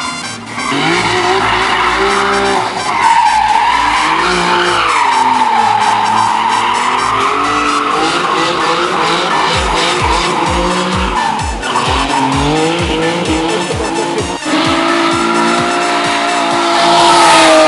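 BMW E36 drift car sliding through a corner: its engine revs rise and fall as the throttle is worked, under a long, wavering tyre squeal. The sound gets louder near the end as the car comes closer.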